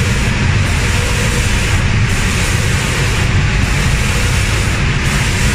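Automatic spray-painting machine running: steady loud machine and spray-air noise, with the high hiss dipping briefly about every second and a half as the spray guns make their passes.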